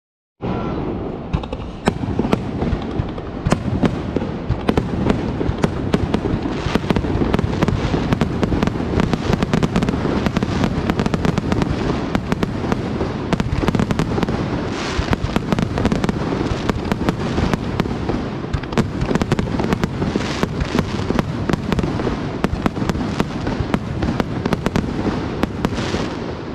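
Aerial fireworks display: many bursts and sharp pops in quick, overlapping succession over a steady low rumble. It starts suddenly about half a second in.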